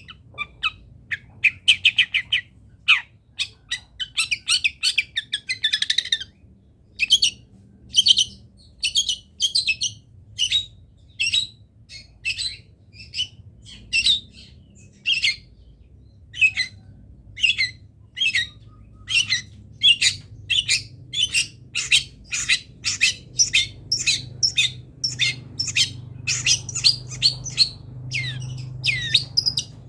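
Long-tailed shrike (cendet) calling: a long series of short, sharp, high notes at about two a second, opening with a few seconds of rapid chattering, over a faint low hum.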